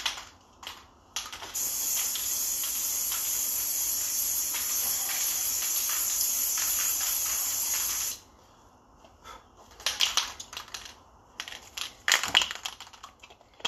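Krylon aerosol spray can of primer spraying in one long, steady hiss that starts about a second in and stops after about seven seconds. A few short clicks and knocks follow near the end.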